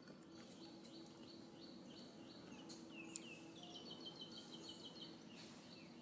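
Faint bird chirping: series of short high notes, including a few quick down-slurred notes and a rapid run of chirps in the middle, over a faint steady low hum.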